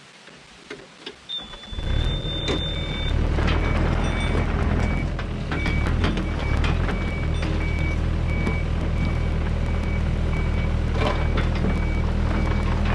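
Mini excavator's diesel engine and hydraulics come up loud about two seconds in and keep running under load as the machine tracks forward, dozing dirt with its blade. A travel alarm beeps steadily, about once every two-thirds of a second.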